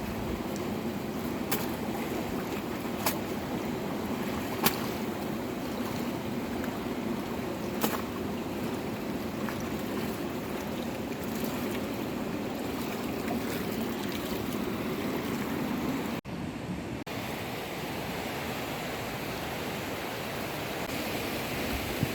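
Steady rush of flowing water, with a few sharp clicks in the first eight seconds and a brief dropout about sixteen seconds in.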